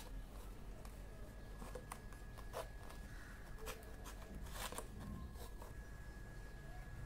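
Faint handling of a stiff paper chart: light rustling and a few soft clicks and taps, bunched around the middle, as the sheet is held and shifted.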